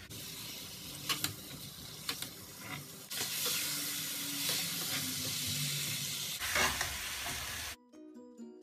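Marinated chicken sizzling in hot oil in a nonstick frying pan on high heat, stirred with a spatula that clicks and scrapes against the pan. The sizzle gets louder about three seconds in and cuts off suddenly near the end, giving way to background music.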